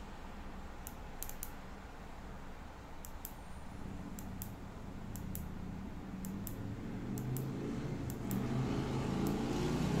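The small rubber tail button of an Astrolux K1 keychain flashlight clicking, mostly in quick double clicks about once a second, as it is pressed through its modes. Under the clicks, a low droning hum grows louder from about halfway in.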